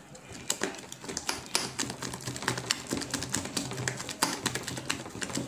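A hand beating thick urad dal batter in a steel bowl: quick, irregular wet slaps and clicks, several a second. The batter is being whipped to air it until it turns fluffy.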